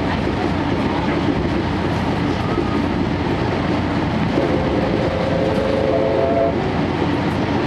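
Steady running noise inside a 12-series passenger coach on the move: wheels rolling on the rails under the SuHaFu 12 car, along with the hum of its power-generating diesel engine. In the second half a held tone lasts about two seconds.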